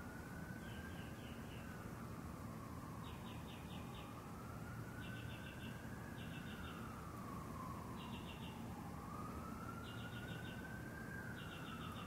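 A distant siren wailing slowly up and down, about five seconds per rise and fall, with a cricket chirping in short pulsed bursts every second or two over a low steady background hum.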